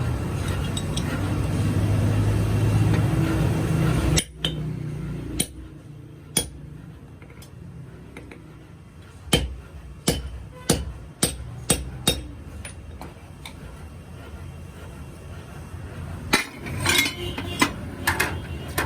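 Hammer blows ringing on metal: a few single strikes, then a quicker run of about six, then another group near the end. Before them, a low steady rumble cuts off about four seconds in.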